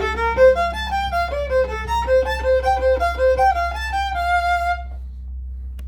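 Solo fiddle playing the last bars of a reel in F major, a quick run of notes that ends on a held final note about five seconds in. A steady low hum remains after the playing stops.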